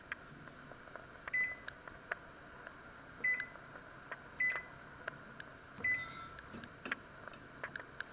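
Microwave oven control panel beeping as its buttons are pressed: four short high beeps, with light clicks between them.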